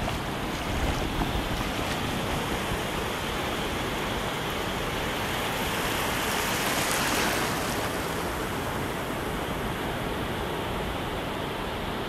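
Ocean surf washing up the beach: a steady wash of small breaking waves, with one louder rush of water about six to eight seconds in as a wave sweeps up the shore.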